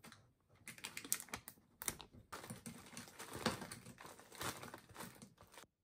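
Frozen blueberries tipped from a plastic zip bag, clicking and clattering into a plastic yogurt cup, with the bag rustling. The quick irregular clicks stop suddenly near the end.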